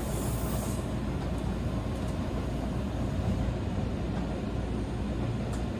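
Seibu 4000 series train running at speed, heard from inside the passenger car: a steady low rumble of wheels on rails and running gear.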